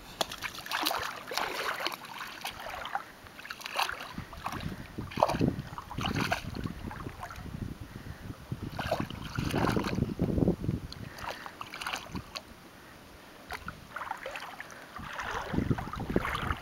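Young boxer dog wading through shallow water, its paws splashing in irregular bursts, with a brief lull about three-quarters of the way through.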